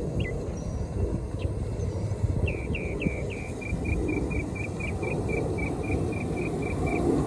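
A diesel-fired live-steam 4-6-2 Pacific locomotive running along its miniature track, making a steady rumble. A rapid series of short high chirps, about four a second, runs through the latter half.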